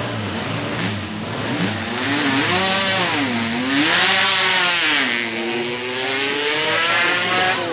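Motorcycle engine revving hard as it passes, its pitch dipping and climbing twice, loudest around the middle.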